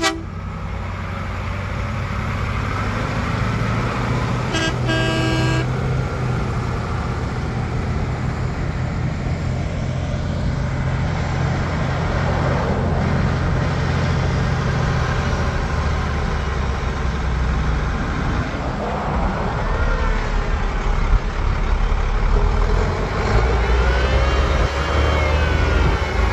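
Classic diesel trucks pulling out and driving past, their engines running steadily under load. An air horn sounds once for about a second, around five seconds in, and near the end a siren winds up and down over the engine noise.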